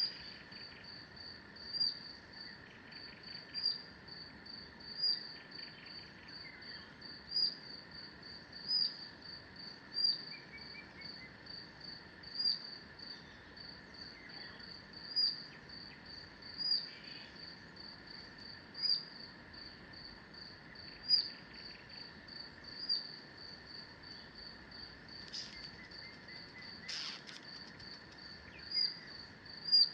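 Forest ambience: a single high chirp repeating steadily about twice a second, with a louder chirp every second and a half or so, over faint scattered bird calls. One sharp call stands out near the end.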